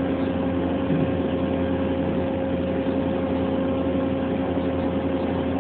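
Steady machine hum of running machine-shop equipment, with a few constant tones held over an even rumble.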